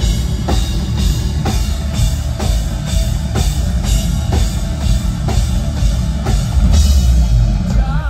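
Live heavy metal band playing an instrumental passage: loud drums, with a sharp cymbal or snare hit about once a second, over a heavy bass-laden low end and no vocals.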